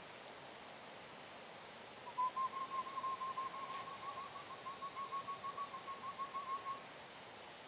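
A rapid, even run of hollow hooting notes in the call pattern of the uru (spot-winged wood-quail), about five notes a second for nearly five seconds. A single sharp click comes partway through.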